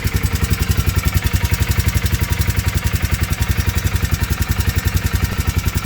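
2019 Polaris 500 engine idling with a steady, even beat of about eleven pulses a second, knocking.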